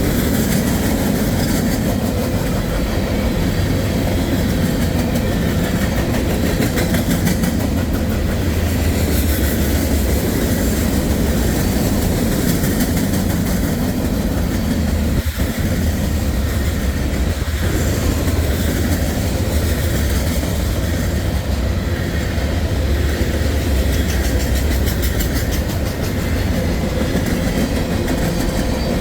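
Freight train rolling past at speed: a steady heavy rumble of steel wheels on the rails, with the clickety-clack of wheels over the rail joints.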